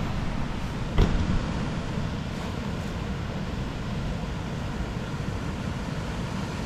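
Steady rushing outdoor noise on a jungle hiking trail, heavy in the low end, with one sharp knock about a second in.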